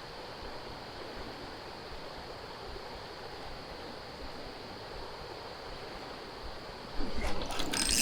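River water running steadily, an even rushing noise. Near the end a louder clattering rustle of handling noise starts.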